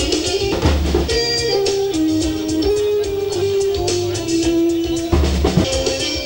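A live band playing upbeat music, with a drum kit keeping a steady beat under guitar and long held melody notes.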